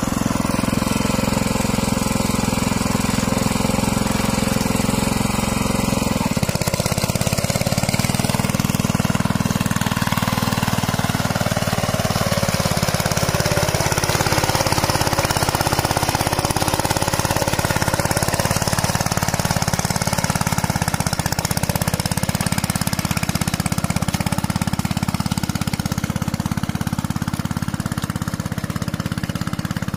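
Two-wheel hand tractor's single-cylinder diesel engine running steadily under load as it pulls a moldboard plough, a rapid knocking chug. Its low note changes about six seconds in, and it keeps running without stalling.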